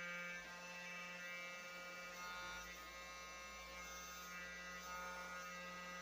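Handheld heat gun running steadily: a steady motor hum with several high, whining tones over a rush of blown air.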